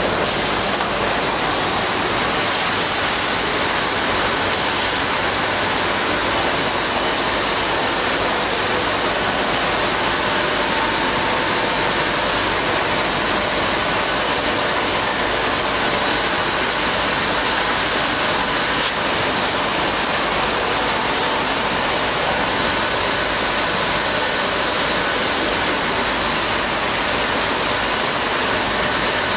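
WEEKE Optimat BHX 560 CNC through-feed drilling machine running: a steady, even rushing noise with a faint high whine.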